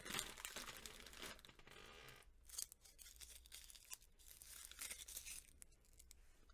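Foil wrapper of a Hershey's Kiss crinkling and tearing as it is peeled off by hand, in faint bursts of crackle, the loudest in the first second and a half.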